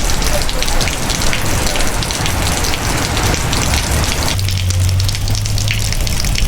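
Rain falling on surfaces: a dense, steady hiss of many small drop impacts. About four seconds in, a low steady hum joins for about two seconds.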